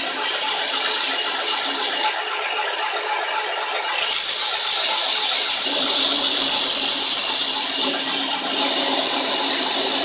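Van Norman Perfecto 777S boring bar running under automatic feed, cutting a cylinder bore in a cast-iron 454 big-block Chevy block, with a steady machine hum. A compressed-air nozzle hisses over it, louder from about four seconds in until near the end.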